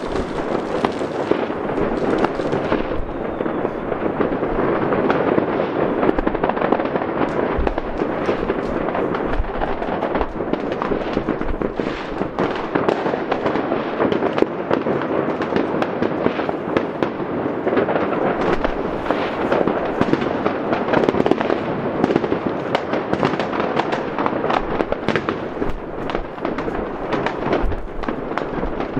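Many fireworks and firecrackers going off at once, a dense unbroken crackle of overlapping bangs and pops that holds steady throughout.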